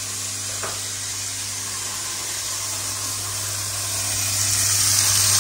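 A power tool running steadily: a low hum under a loud hiss, the hiss growing louder about four seconds in.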